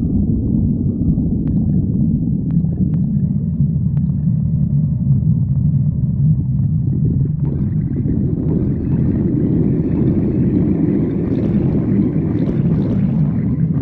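Human stomach growling: a continuous low rumble, with a higher-pitched growl joining about halfway through and building.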